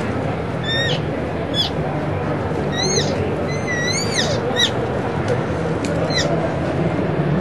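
Imitation cow elk calls blown by a person on an elk call: about six short, high-pitched mews, most dropping quickly in pitch and one about four seconds in longer and wavering, over the steady hum of a large hall.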